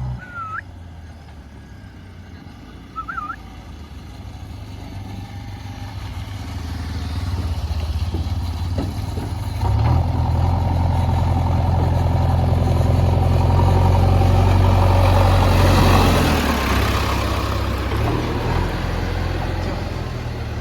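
Heavy vehicle's diesel engine running. It grows louder over the first half, holds a loud steady note for several seconds, then eases off and varies toward the end.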